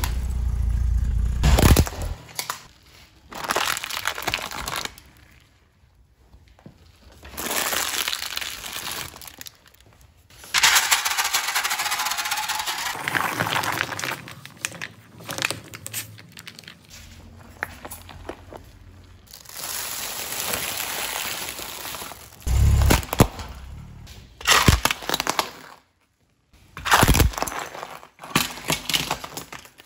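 A car tyre rolling over and crushing small objects, including a plastic toy phone and paper cups, with cracking, crunching and crumpling. The sounds come in several separate bursts with quieter gaps between them.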